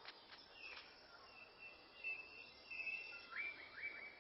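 Faint rainforest ambience with bird calls: a few sharp clicks at first, then a thin high whistled note held for over a second, then a short run of quick sliding notes near the end.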